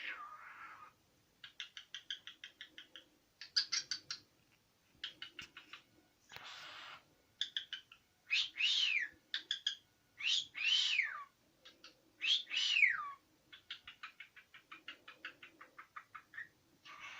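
Cockatiel chattering in quick runs of short chirps, with a rough hissy call about a third of the way in, then three loud whistles in the middle that each sweep downward in pitch.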